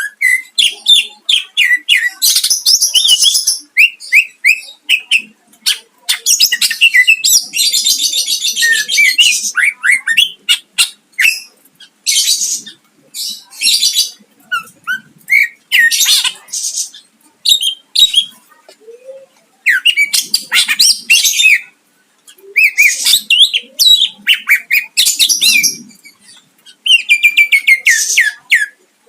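Green leafbird (cucak ijo) singing loudly in quick-fire phrases: rapid chirps and trills mixed with harsh rasping bursts, broken by short pauses.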